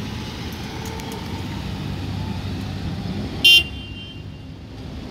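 Low, steady rumble of small cars running at low speed, cut by one short, loud horn beep about three and a half seconds in.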